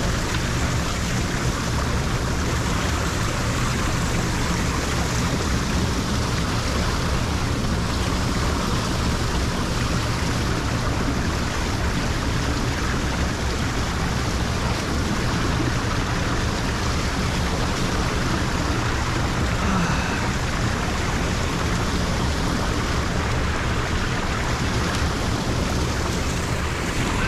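Pond water pouring steadily into a lake drain, a constant even rush of running water.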